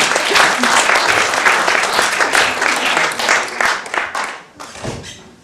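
Audience applauding, fading out about four seconds in with a few last scattered claps.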